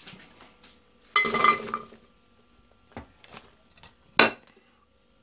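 Chopped vegetables tipped off a ceramic plate into a slow cooker's pot: a loud clatter with a ringing clink of plate against pot about a second in, a few light knocks, then one sharp knock about four seconds in.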